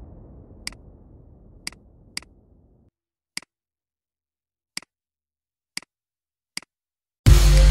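Computer mouse clicking: seven single clicks spaced irregularly, over a faint hiss that fades away in the first few seconds. Loud electronic music cuts in suddenly near the end.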